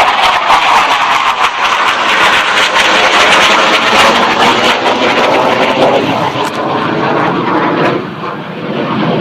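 F-16 fighter jet making a low pass, its jet engine noise loud and rushing, easing off somewhat near the end.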